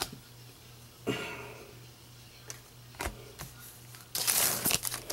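A few light clicks and taps of trading cards and packs being handled. From about four seconds in comes the loud crinkling of a foil trading-card pack wrapper being handled and worked open.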